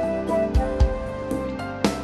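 Background music: sustained instrumental notes over a regular beat.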